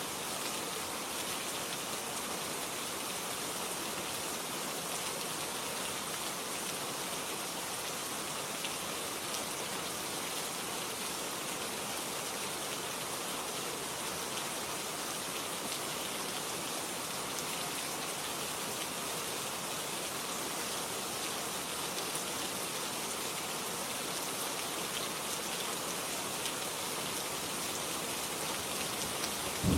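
Steady rain falling, an even hiss with no breaks or changes in level.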